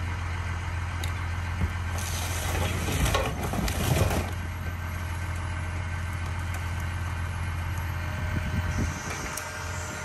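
Scrap-handling excavator's grapple clamping down on a car, crushing the roof and windshield with a loud crackling crunch of sheet metal and glass about two to four seconds in. Under it is the steady low hum of an idling diesel engine.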